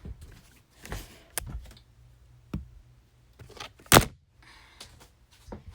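Scattered small knocks and thumps of things being handled and moved about, with one sharp, louder knock about four seconds in.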